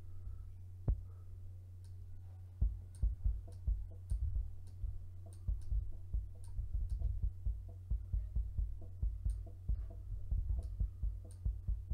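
Isolated outside-mic kick drum track from a metal song playing back through an 1176-style compressor (Waves CLA-76): rapid, uneven runs of double-kick hits, each a low thump with a sharp click on top.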